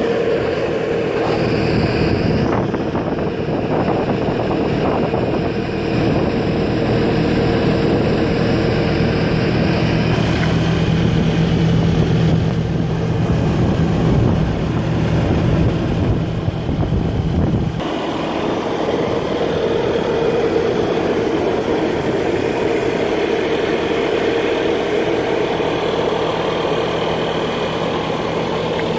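A 2014 Bobcat S650 skid steer loader's diesel engine runs steadily. About 18 seconds in, the deep low part of the sound drops away abruptly and the engine runs on lighter.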